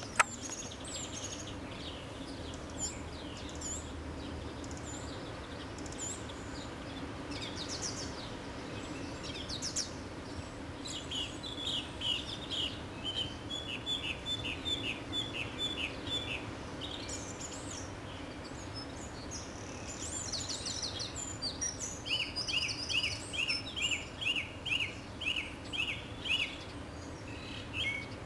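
Small garden birds calling and singing, with many short high chirps and whistles. Twice, from about 11 s and again from about 22 s, one bird gives a fast run of the same sharp chirp repeated a little over twice a second.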